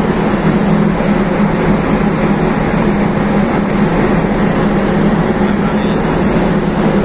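Steady drone of a bulk carrier's engine and machinery heard on deck while under way: a constant low hum under an even hiss of noise.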